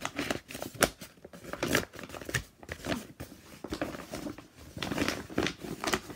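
Rustling and crinkling of a collapsible fabric storage basket of thick, stiff material being unfolded and handled, with many irregular sharp crackles.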